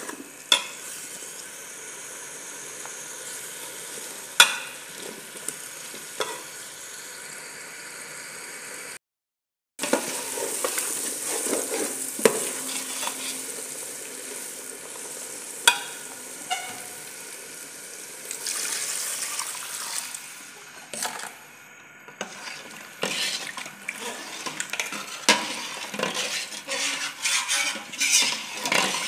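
A steel spoon stirs diced potatoes and masoor dal frying in an aluminium pot, over a steady sizzle, with scattered sharp clinks of the spoon against the pot. The sound drops out for a moment about nine seconds in. The clinks come thick and fast near the end.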